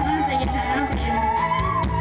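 Musical saw bowed to play a sustained, singing melody line that slowly rises and falls in pitch, with an electric bass playing low notes underneath.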